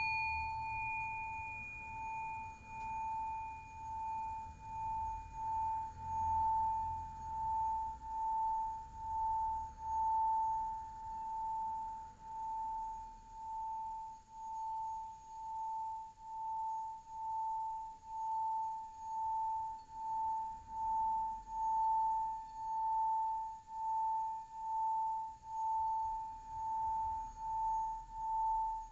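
Singing bowl being rimmed, singing one steady tone that swells and dips about once a second; a higher overtone fades out over the first few seconds.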